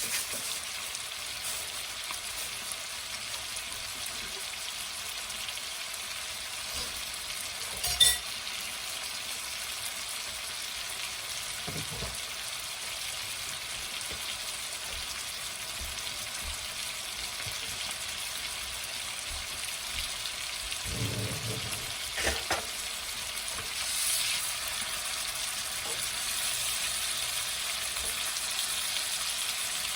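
Food sizzling in a hot pan, a steady hiss that grows a little louder near the end. A sharp clack about eight seconds in and a few softer knocks later on.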